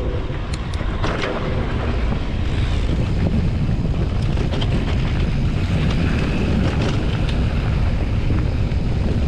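Wind buffeting the camera microphone and knobby mountain-bike tyres rolling over loose gravel on a downhill dirt road, a steady rumble with a few light rattles in the first couple of seconds, growing slightly louder a few seconds in.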